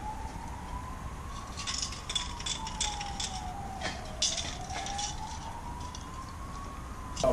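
A siren wailing faintly, its pitch rising and falling slowly in cycles of about four seconds. A few light crackling clicks come in the middle.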